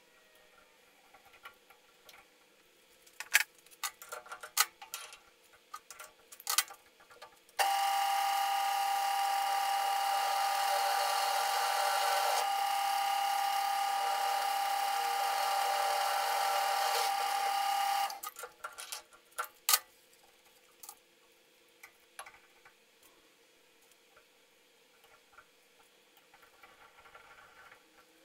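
Drill press running and drilling into a thick-walled square steel tube: a steady whine with several fixed tones for about ten seconds, starting and stopping abruptly. Sharp clicks and taps come before it and just after it stops.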